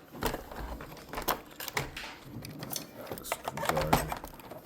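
Irregular plastic clicks and knocks from hands working at the battery inside an Ecovacs Deebot X1 Turbo robot vacuum's opened underside.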